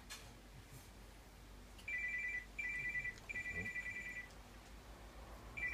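Mobile phone ringtone: a high, trilling two-tone ring in three bursts starting about two seconds in, then ringing again near the end.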